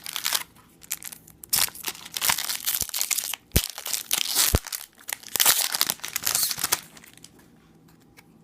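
A trading card pack's wrapper being torn open and crinkled: a run of irregular crackling rustles that stops about seven seconds in.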